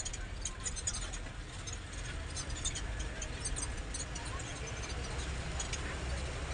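Bus running on the road, heard from inside the cabin: a steady low engine drone with frequent light clicks and rattles from the body.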